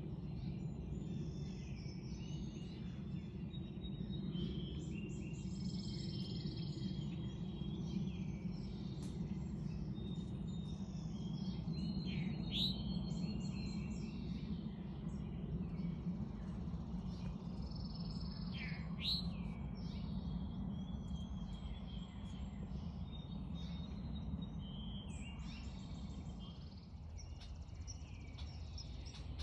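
Several backyard birds chirping and singing, many short calls and trills overlapping throughout, over a steady low background rumble.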